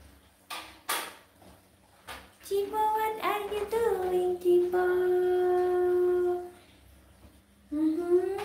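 A baby macaque's long, whining coo calls. Two short knocks come first, then a call about two and a half seconds in that settles into a long steady note, and a rising call near the end.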